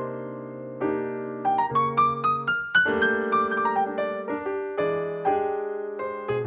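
Background piano music: sustained chords with a quick run of rising notes in the middle.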